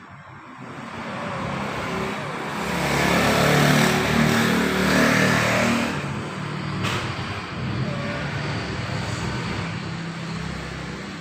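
A motor vehicle passing close by: engine and road noise swell to a peak about four seconds in, then fade, with a brief click about seven seconds in.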